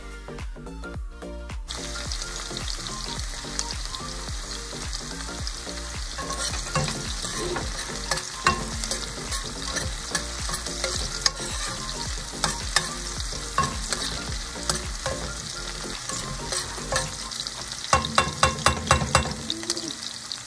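Diced brown onion frying in hot vegetable oil, sizzling and crackling steadily as a slotted spatula stirs it around the pan. Near the end there is a quick run of sharp knocks.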